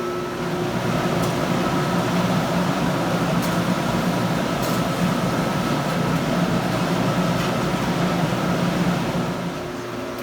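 Blower forcing air through a coke forge fire while a steel billet heats: a steady rushing noise with a low hum, growing louder about half a second in and dropping back near the end.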